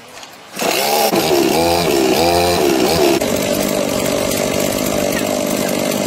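Chainsaw engine starting about half a second in, revved up and down twice, then held steady at high speed.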